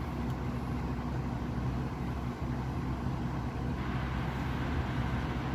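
Amana PTAC packaged terminal air conditioner running in heat pump mode, its compressor and indoor and outdoor fans giving a steady hum with air rushing through. A brighter hiss joins about four seconds in.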